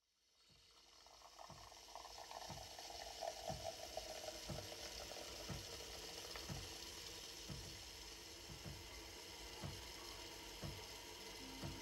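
Fully automatic coffee machine dispensing frothed milk into a glass: a steady hiss and bubbling that fades in at the start, with a low pulse from the machine about once a second.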